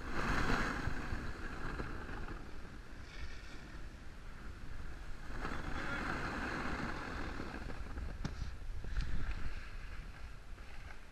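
Snowboard sliding and scraping over groomed snow, a rough hiss that swells twice, over the low rumble of wind buffeting the microphone.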